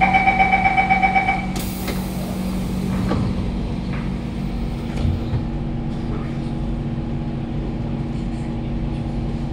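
Door-closing warning chime on a Siemens C651 metro train: rapid pulsing two-tone beeps for about a second and a half, then a short hiss as the doors shut about two seconds in. After that, the train's steady equipment hum while it stands with its doors closed.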